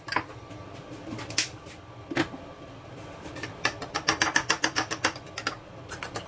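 Metal fork beating eggs in a ceramic bowl, clicking against the bowl: a few scattered taps at first, then a fast, even run of about seven clicks a second past the middle.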